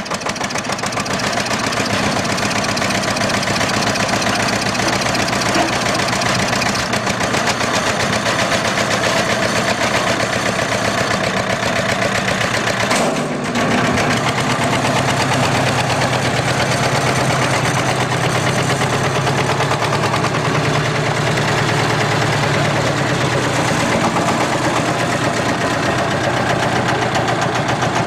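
Two-cylinder Petter PH2 air-cooled diesel engine of a Benford dumper running steadily with a rapid, even knock, just hand-cranked into life after standing unused for a long time. About halfway through the sound dips briefly, then the engine runs on with a deeper, steadier tone.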